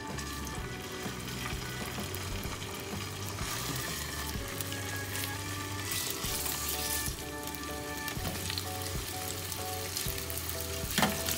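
Yellowtail fillets sizzling steadily as they fry in a frying pan, the sizzle growing stronger a few seconds in.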